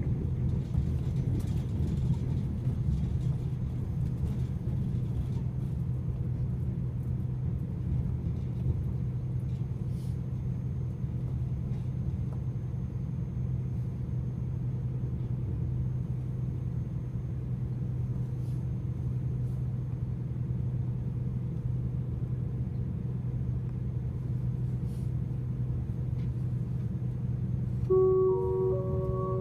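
Steady low rumble and hum inside a moving passenger train carriage, wheels running on the track. Near the end, a short chime of several steady notes: the on-board PA tone that comes before an announcement.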